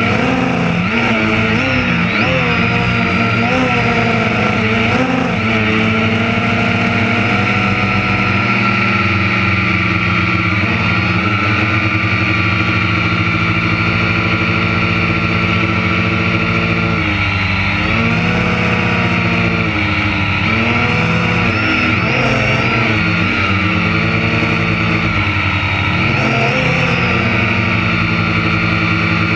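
Engine of a piece of harvest machinery running steadily, its pitch sagging briefly a few times as the load comes on.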